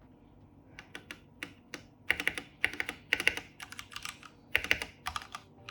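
Keystrokes on a DareU EK884 mechanical keyboard with DareU's own red linear D-Switches, typed in uneven bursts of quick clicks. The typing starts about a second in and gets louder and denser from about two seconds in.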